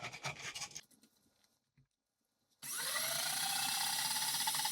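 A few light clicks and rattles, then, after a short gap, an electric drain-cleaning machine switched on with its air foot switch: its motor spins up with a quickly rising whine and then runs steadily as it drives the snake cable into the clogged floor drain line.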